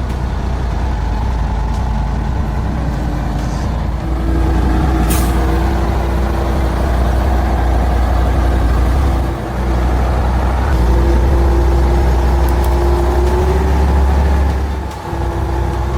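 Heavy logging truck's diesel engine running hard under load, with a steady whine over the low rumble. It gets louder about four seconds in and briefly eases off twice, near nine and fifteen seconds.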